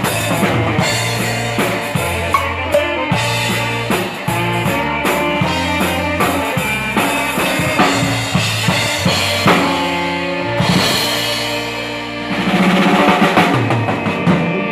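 A live Texas Czech dance band playing a tune, with a steady drum-kit beat and a bass line carrying it. The music gets louder for the last couple of seconds.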